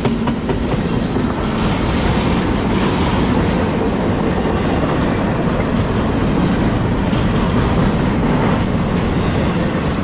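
A freight train of double-stack intermodal well cars rolling past close by: a steady, loud rolling noise of steel wheels on the rails, with no horn.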